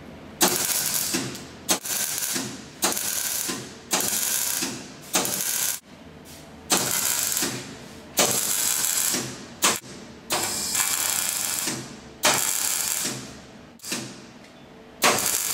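MIG welder arc crackling on steel tube in a dozen or so short bursts, each about a second long and cut off sharply, with brief pauses between as the joint is stitch-welded.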